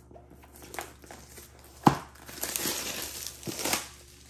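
Plastic shrink wrap on a cardboard box crinkling and rustling as hands handle it, with one sharp knock of the box about two seconds in.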